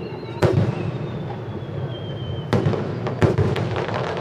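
Aerial firework shells bursting: three booms, the first about half a second in and two more a little before and after three seconds in, each trailing off in a rumbling echo, with a spell of crackling after the last.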